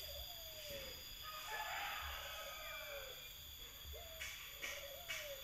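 Cats meowing: about five short calls, each rising and falling in pitch.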